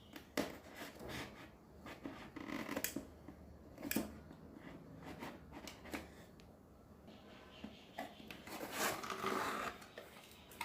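Phone retail box and its packaging being opened by hand: scattered sharp clicks and short scrapes and rustles, with a longer rustling stretch near the end.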